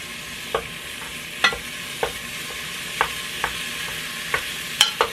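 Lean ground beef sizzling steadily as it browns in a Presto electric kettle. A utensil knocks against the pot about eight times at uneven intervals as the meat is stirred.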